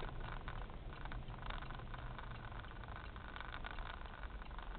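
A car driving at low speed, heard from inside the cabin: a steady engine and road-noise rumble with scattered light clicks.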